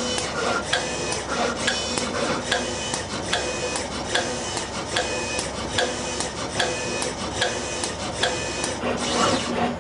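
Conformal coating machine at work: the SV70 coating valve and its gantry robot give an even run of sharp clicks, about two a second, with short motor whines between them.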